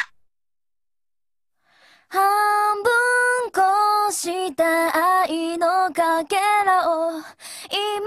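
A woman's voice singing a melody unaccompanied, in short held notes with brief breaks, beginning about two seconds in after near silence.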